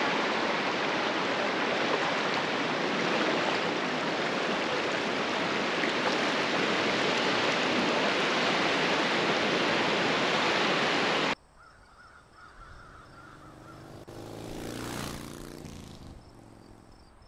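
Strong wind and surf make a steady rush of noise that cuts off abruptly about eleven seconds in. A much quieter stretch follows, with a faint bird call and a motor passing by, swelling and fading.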